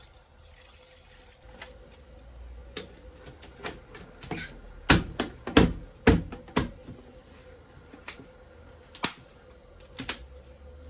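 Irregular knocks and clicks of objects being handled, loudest in a quick cluster of sharp strikes about five to six seconds in.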